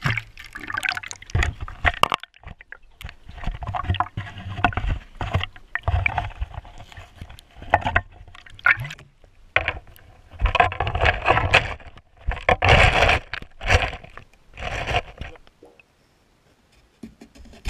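Water sloshing and gurgling around a GoPro in its waterproof housing as it is dipped under river ice, with knocks and scrapes of the housing against ice and stones. The sound comes in irregular surges and drops almost to silence for a moment near the end.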